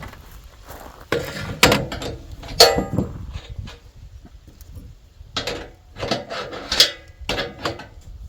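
Metal clanks, knocks and scrapes from tightening down the adjusted bunks on a sawmill, in two busy stretches, one starting about a second in and another after five seconds.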